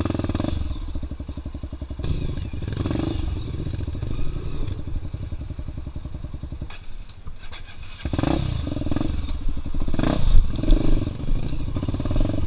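Air-cooled single-cylinder engine of a Honda Tornado trail bike bored out to 293 cc, running at low revs over rough ground with throttle blips. It falls almost to idle about seven seconds in, then revs in short bursts under load.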